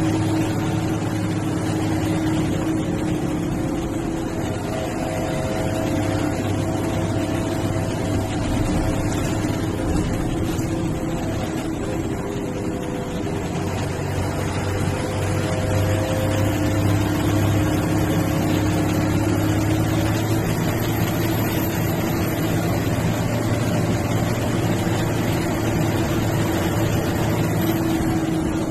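MSRTC bus engine running steadily under way, with road noise, heard from inside the bus. A low hum carries engine tones that shift slowly in pitch, and a faint high whistle rises gently through the second half.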